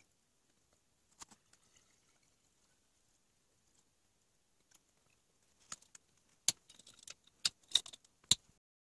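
Swing-top beer bottles being closed by hand: ceramic stoppers and wire bails clicking and snapping shut, a quick run of sharp clicks in the last few seconds after a few faint knocks.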